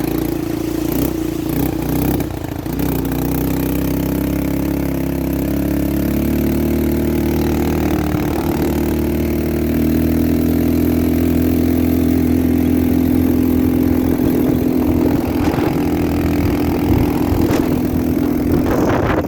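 ATV engine running while riding, its pitch shifting with the throttle for the first several seconds, then holding fairly steady.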